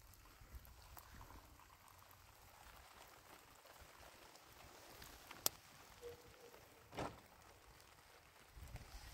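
Faint sound of tea being poured from a small kettle into a glass, with a sharp click about five and a half seconds in and a short knock about a second and a half later.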